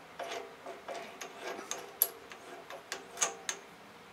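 Light metallic clicks and ticks from a drill press chuck being worked by hand to change the bit, with the sharpest clicks about two seconds in and again near three seconds.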